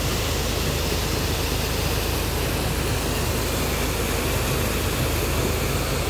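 Steady road and engine noise inside a moving car's cabin, an even rushing hiss over a low rumble.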